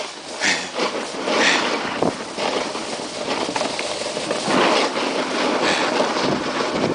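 Snowboard sliding and scraping over packed snow during a run, a continuous rough hiss that swells several times as the board's edge bites on the turns.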